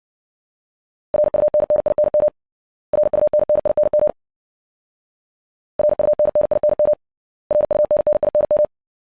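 Morse code practice tone sent at 60 words per minute: a single steady pitched beep keyed in very fast dits and dahs, in four short groups of about a second each, the same word played four times over. The word is "running".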